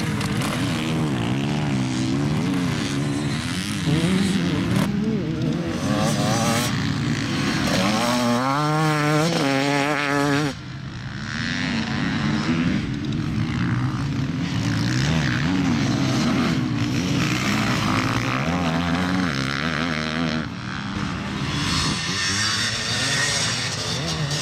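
Off-road dirt bike engines revving and accelerating past, the pitch rising and falling as the riders work the throttle. A long rising rev about eight to ten seconds in cuts off suddenly.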